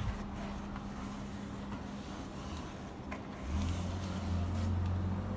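Steady low hum of a motor vehicle's engine, getting louder about three and a half seconds in.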